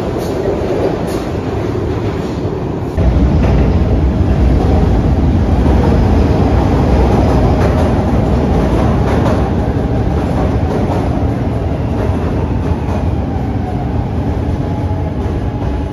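SEPTA Market–Frankford Line subway train running past the platform in an underground station. About three seconds in, it cuts to a louder, deeper, steady train noise from a train running on the steel elevated structure overhead.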